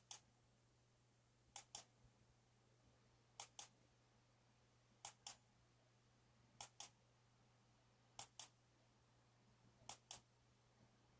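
Computer mouse button clicking: six pairs of sharp clicks, the two in each pair about a fifth of a second apart, repeating roughly every one and a half seconds, stepping through photos in an image viewer. A faint low hum runs underneath.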